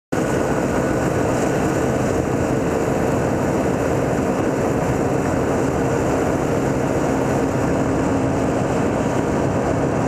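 Enduro motorcycle engine running at a steady speed on the move, heard from the rider's helmet camera mixed with a steady rush of wind and road noise.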